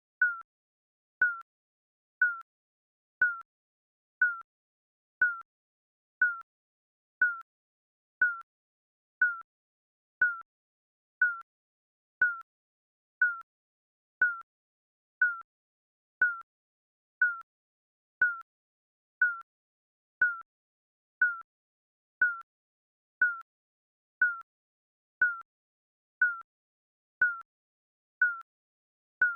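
Digital countdown timer beeping once a second, each beep a short high tone that dies away quickly.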